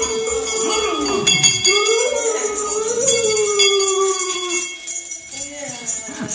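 Bells jingling constantly, as on the costumes of Czech St. Nicholas devils, with a high voice crying out in long, wavering sounds over them.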